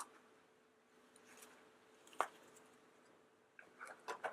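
Faint handling of a plastic surprise egg being opened: a single sharp click about two seconds in, then a few small clicks and rustles near the end.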